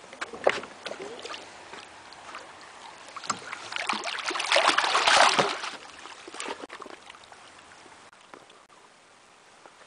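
Water sloshing and splashing against a wooden post, swelling for about two seconds midway. A few knocks on wooden planks, like footsteps on a dock, come about half a second in.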